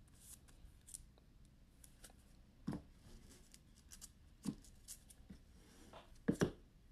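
Trading cards and their plastic holders being handled: scattered light clicks and rustles, with a sharper double click near the end.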